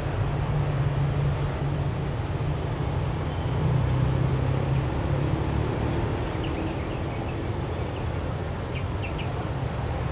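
Diesel locomotive engine running with a steady low hum, mixed with road traffic (cars and motorcycles) passing close by; the hum is strongest in the first half.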